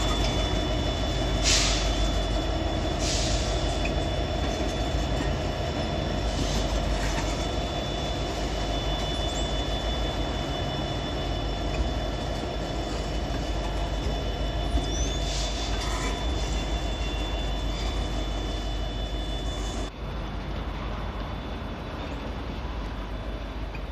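Freight train of steel coil cars and gondolas rolling past close by: a steady rumble of wheels on rail with a thin high whine and a few brief screeches from the wheels. The sound drops abruptly about twenty seconds in.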